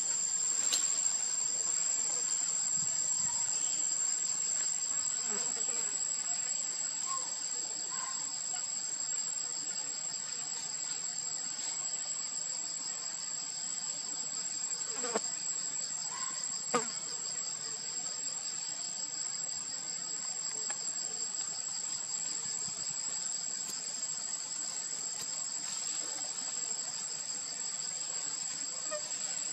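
Steady chorus of insects: a continuous shrill high tone with a rapidly pulsing trill just beneath it. Two faint clicks about halfway through.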